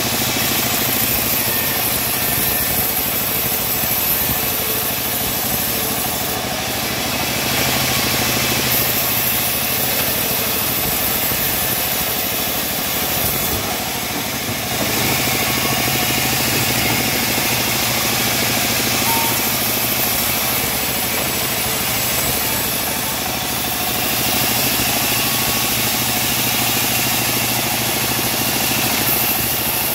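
Homemade vertical bandsaw mill running steadily, its blade ripping through teak boards in repeated passes. The high cutting hiss dips briefly about four times as one pass ends and the next begins, over the steady hum of the machine.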